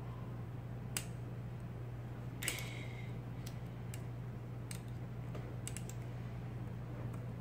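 IBM Selectric typeball typewriter being test-typed after repair: sparse, sharp keystroke clacks, about eight spread out, over a steady low hum. One louder stroke about two and a half seconds in has a brief ringing tone after it.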